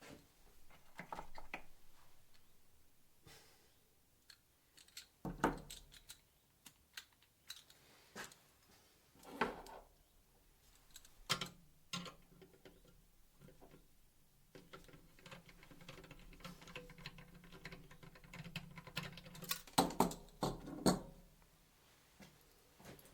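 Irregular clicks, taps and knocks of hands working on the graphics card inside a desktop PC case, prodding at the card's stiff PCIe slot release latch. The clicks come a few seconds apart, with a faint steady hum in the middle and a denser run of knocks near the end.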